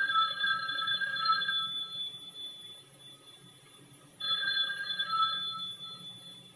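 Telephone bell ringing in the usual on-off cadence. One ring ends about two seconds in, and the next ring starts about four seconds in and lasts about two seconds.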